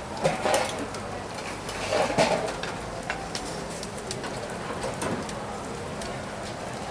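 Charcoal stoves under a row of clay pots hissing and crackling, a steady hiss with scattered sharp pops, with a couple of louder bursts near the start and about two seconds in.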